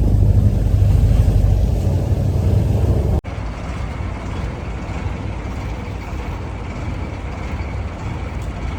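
A boat's motor running steadily, a loud low rumble. About three seconds in the sound cuts off for an instant and comes back quieter, with a faint steady high whine over the hum.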